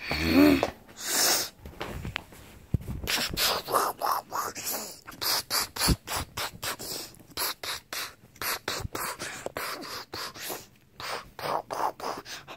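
Rapid, irregular scuffling, rubbing and hissing right at the microphone as plush toys are shaken and pushed about, with a brief squeal about half a second in.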